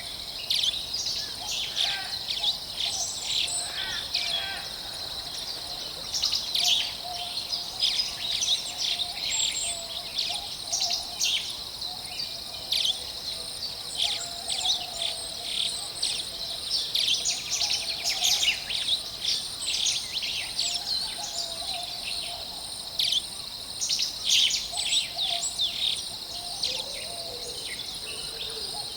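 Forest ambience of many birds chirping and singing in short, overlapping phrases over a steady, high-pitched insect drone.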